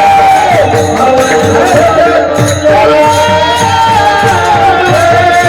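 Devotional kirtan music: a held melody line gliding up and down over a steady drum beat with jingling percussion.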